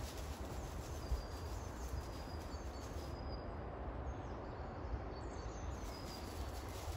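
Quiet woodland ambience: a steady low background rumble with faint, scattered high bird chirps.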